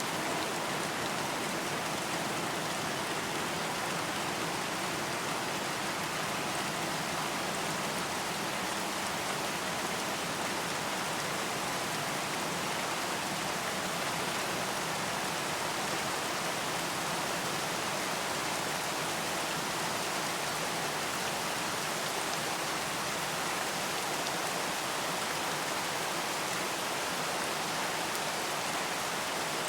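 Steady rain falling, an even hiss of drops with no change in intensity.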